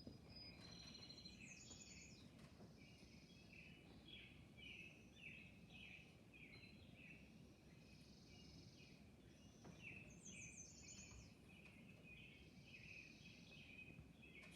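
Faint songbird chirping played back from a bird video: a run of short, repeated chirps with a couple of higher trills, over a low background hum.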